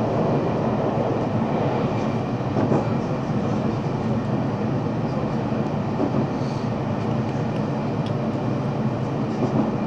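JR Central 313 series electric multiple unit running at speed, heard from behind the driver's cab of the front motor car: a steady rumble of wheels on rail and traction motor, with faint thin tones and occasional light clicks.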